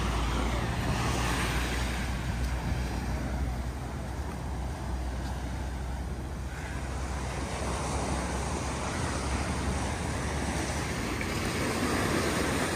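Waves washing up the beach in slow swells, with a steady low wind rumble on the microphone.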